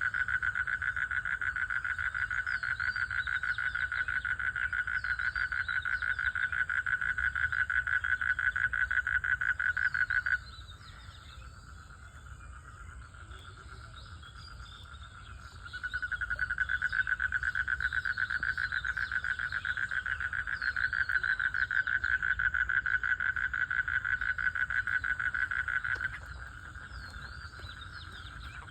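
Frogs calling in a pond during mating: a loud, rapid pulsed trill from the nearest callers that stops abruptly about ten seconds in, starts again about five seconds later, and drops away near the end. Fainter, higher chirping calls carry on underneath.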